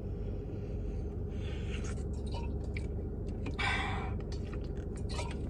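Soft chewing of food, in a few short spells, over a steady low hum.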